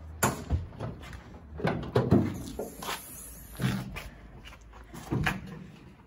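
Bonnet of a Peugeot 106 being released and raised: a string of separate metal clunks and knocks.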